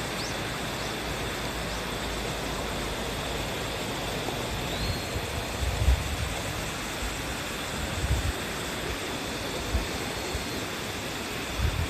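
Steady, even hiss of outdoor background noise, with a few short low thumps on the microphone from about halfway through.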